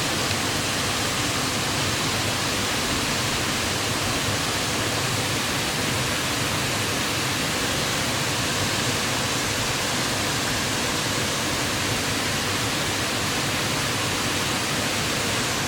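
Waterfall's falling water rushing, a steady, unbroken noise at an even level.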